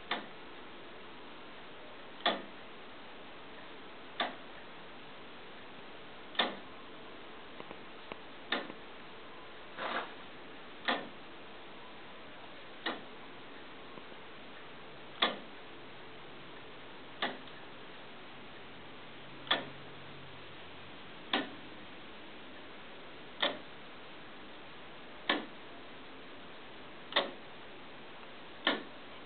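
Wooden foliot clock's verge escapement ticking, a sharp click about every two seconds, slightly uneven in spacing, as the weighted foliot swings back and forth.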